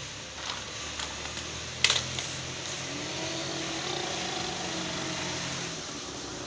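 Plastic toy trucks being handled and knocked together, with a few light clicks and one sharp plastic knock about two seconds in, over a low steady hum.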